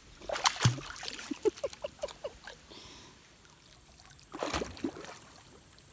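Wading in shallow creek water: scattered small splashes and drips in the first couple of seconds, then a quieter stretch and a louder splash about four and a half seconds in.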